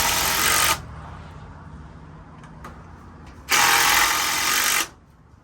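Power drill driving screws into a wooden board, in two runs: one that stops just under a second in and another about three and a half seconds in that lasts just over a second.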